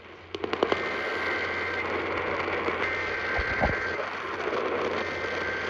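AM radio tuned to 640 kHz giving out steady static hiss, with a pair of high steady whistle tones that come and go. A few sharp clicks near the start and a couple of low bumps about halfway through.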